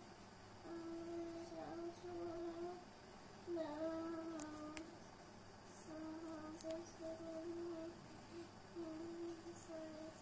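A child humming a tune in sustained notes, phrase after phrase with short breaks.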